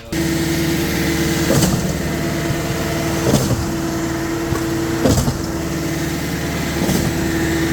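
Concrete mixer truck running, its engine and mixing machinery giving a steady hum, with a knock repeating about every second and three quarters.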